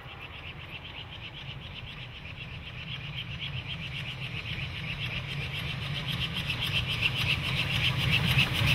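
GWR Manor class 4-6-0 steam locomotive 7828 Odney Manor approaching with its train, a low rumble and a fast, even run of exhaust beats growing steadily louder as it nears.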